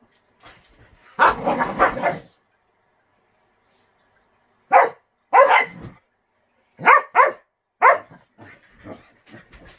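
Dog barking: a rough, drawn-out burst about a second in, then a run of sharp, separate barks between about five and eight seconds in, trailing off into softer ones.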